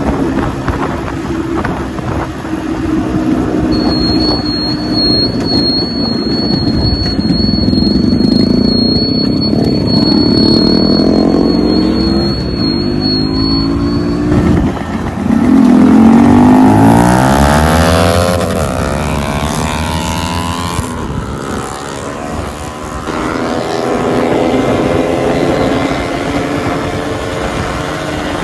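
Motorcycle engines revving up and down in pitch, with more than one engine heard at once as the pitches cross in the second half, over a rushing noise. A thin steady high whistle sounds through the first half.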